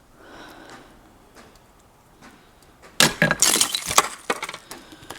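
Icicles being struck with a shovel: a burst of sharp cracks and glassy clinks of breaking ice about three seconds in, lasting about a second and a half.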